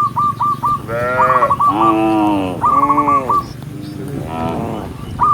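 Cattle mooing: about four moos in quick succession, each a rising-then-falling call. Between and over them run quick series of short, high repeated calls.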